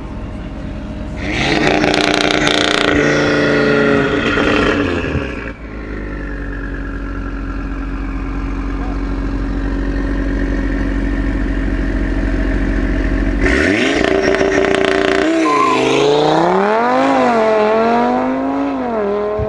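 Tuned Volkswagen Golf 7 R with an Audi RS3 2.5 TFSI turbocharged five-cylinder engine, revved hard at the start line for a few seconds, then held at a steady lower rev. About two-thirds of the way in it launches at full throttle, the revs climbing and dropping back several times as it shifts up through the gears while pulling away.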